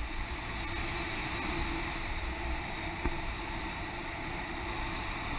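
Steady rush of wind over the camera's microphone as a tandem paraglider flies, with a low rumbling buffet.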